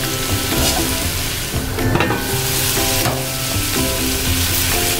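Diced potatoes, carrots, bell pepper and hotdog slices sizzling in a pot, with a plastic slotted spatula stirring them and knocking against the pot a few times.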